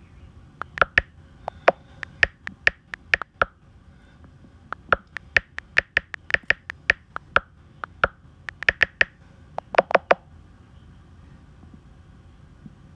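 Typing on an iPad's on-screen keyboard: irregular runs of quick taps and key clicks, with short pauses between bursts, falling quiet about three seconds before the end.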